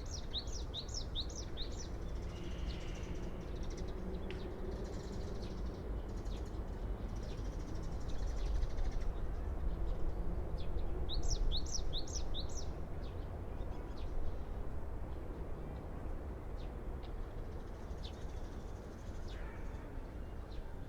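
A songbird sings a quick run of about five high, down-slurred notes at the start and again about eleven seconds in, with scattered fainter chirps from other birds in between. Under the birdsong runs a steady low rumble.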